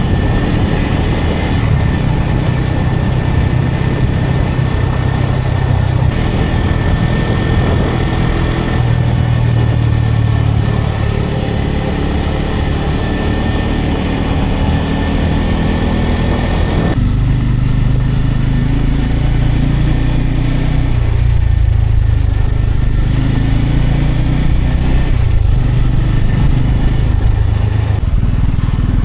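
Bajaj Pulsar N250's single-cylinder engine running steadily while riding, heard from the bike with a rushing hiss over it. About halfway through the hiss drops away suddenly, leaving the low engine note.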